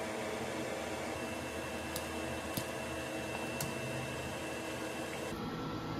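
Scissors snipping through metal wire mesh: three sharp snips between about two and four seconds in, over a steady fan-like hum.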